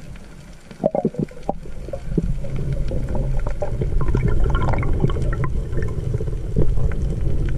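Sea water sloshing and gurgling, with a low rumble. There is a cluster of sharp knocks about a second in, and more scattered clicks later.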